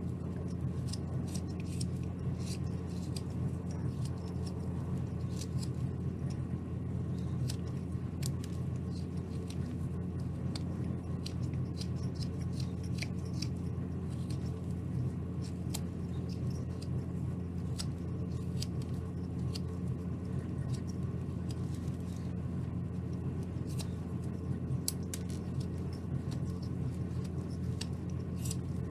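Carving knife paring basswood: irregular short crisp clicks and scrapes of the blade shaving off chips. A steady low hum runs underneath.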